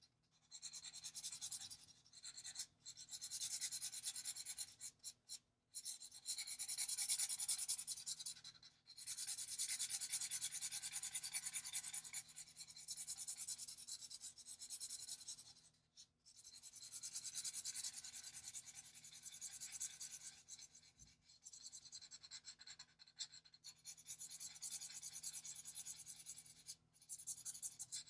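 Ohuhu alcohol marker nib rubbing across paper in colouring strokes: a soft, scratchy hiss in stretches of a few seconds with short pauses between them.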